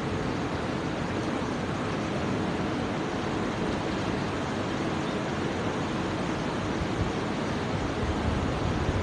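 Steady, even rushing noise of the prayer hall's room tone, with no distinct events.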